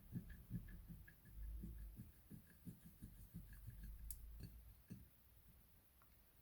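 Faint soft taps and handling sounds of hands working a small piece of polymer clay, in an irregular run of dull little knocks that dies away after about five seconds. There is one sharper click about four seconds in.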